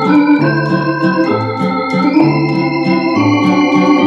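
Roland FR-4X digital accordion playing an organ voice: held organ chords over a moving bass line, with bass notes changing two or three times a second and light clicks at the note attacks.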